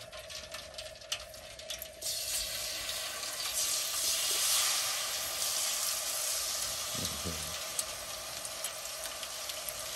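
A whole turkey being lowered into hot oil in a turkey-fryer pot: a sizzle starts suddenly about two seconds in, is strongest a couple of seconds later, then carries on steadily as the bird fries.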